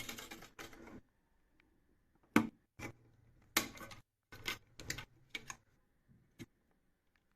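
Computer parts being handled and fitted: a brief rustle, then a run of irregular sharp clicks and knocks, the loudest about two and a half seconds in.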